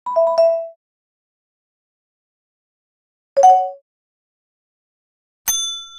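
Three short electronic message-notification alert tones separated by silence: a quick falling two-note chime at the start, a short lower two-tone blip about three and a half seconds in, and a bright bell-like ding near the end that rings on.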